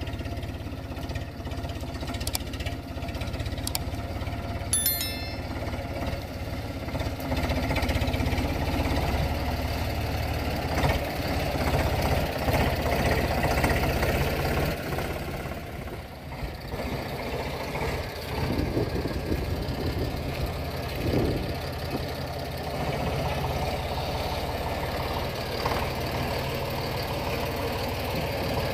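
An Eicher 485 tractor's three-cylinder diesel engine runs steadily under load as it hauls a loaded trolley over rough ground, its level rising and falling a little as it drives.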